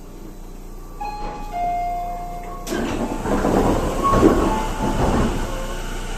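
Onboard running sound of a Tobu 30000 series train: a steady whine from its Hitachi IGBT inverter drive that steps down in pitch. Just under three seconds in, a sudden loud rush of noise cuts in and lasts about three seconds.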